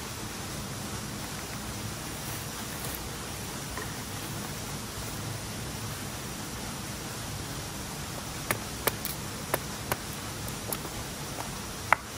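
Steady rush of a flowing river. In the last few seconds, a handful of sharp clicks from a knife working the wooden fire board.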